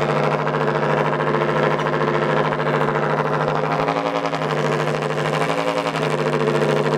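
Solar-heated thermoacoustic engine, a glass tube closed by a membrane, running with a steady low buzz at one pitch. The air column oscillates inside the tube and drives the membrane.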